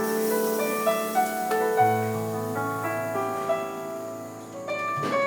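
Piano playing slow, sustained jazz chords and melody notes, with deeper low notes joining about two seconds in.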